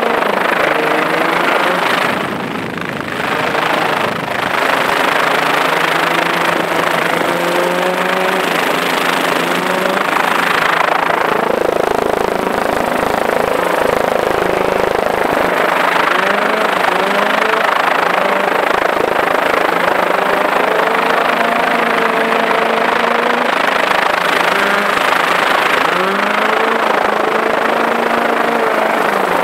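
Ford Escort rally car's Cosworth BDA four-cylinder engine revving hard on a gravel stage. Its pitch climbs and drops again and again with the gear changes, over a steady rush of noise.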